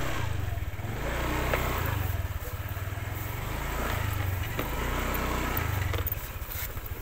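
Motorcycle engine running while riding a rough dirt trail, its low note swelling and easing a few times with the throttle, with a couple of light knocks from the bumps.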